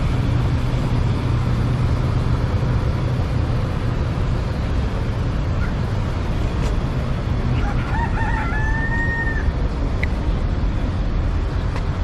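A rooster crowing once, about eight seconds in: a few short notes, then a long held one. Under it runs a steady low rumbling background noise.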